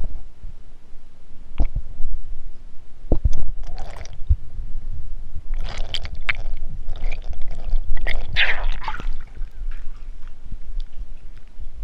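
Muffled underwater knocks, scraping and gurgling picked up by a GoPro in its waterproof housing as it hangs on a rope in the water of a well. There are two sharp knocks in the first few seconds, then bursts of scraping and gurgling through the middle.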